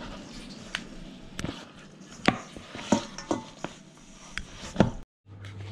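Kitchen utensils and dishes knocking and clinking while dough is prepared: about eight sharp taps at uneven intervals, with a brief break near the end.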